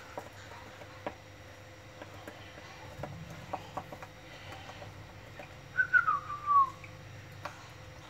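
A short whistled note falling in pitch, broken into a few pieces at its start, a little past halfway through, over faint scattered clicks of handling.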